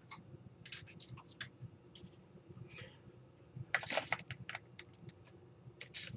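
Faint, scattered clicks and light scratches of a thin 26-gauge wire being handled and drawn across the work surface, in two bunches about a second in and about four seconds in.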